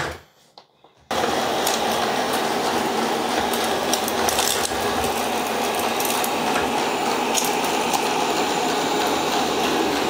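Shark AV2501S robot vacuum running on a hard floor, its suction motor and brushes making a steady whir that starts abruptly about a second in, with a few faint ticks.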